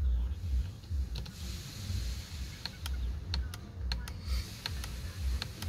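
Steering-wheel multifunction buttons clicking as the arrow and OK keys are pressed to scroll through the instrument-cluster menu: about ten light, irregularly spaced clicks, most of them after the first second or so.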